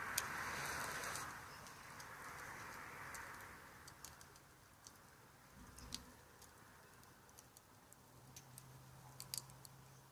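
Wood campfire crackling, with scattered sharp pops and ticks, over a soft rushing hiss that fades away over the first few seconds.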